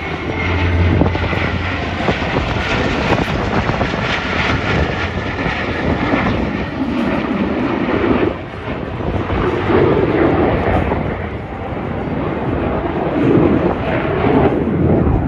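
Jet engines of a formation of F/A-18 fighter jets flying past: a loud, steady roar that dips briefly past the middle and swells again.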